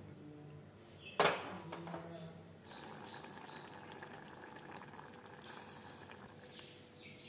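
Squid curry simmering in a pot on a gas stove, with faint bubbling, and one sharp clink about a second in.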